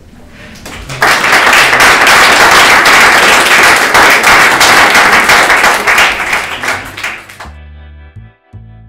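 Audience applauding, starting about a second in and fading near the end, then a cut to a short music jingle.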